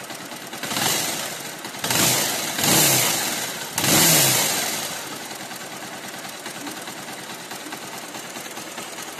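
Bajaj Pulsar's air-cooled single-cylinder engine running, blipped up about four times in the first five seconds and then settling to a steady idle. The timing chain tensioner has just been adjusted to cut the chain noise.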